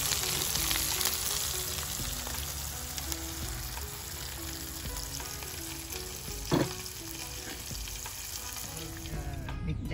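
Bacon, beef and okra sizzling steadily on a Korean BBQ grill pan, with one short knock about two-thirds of the way through.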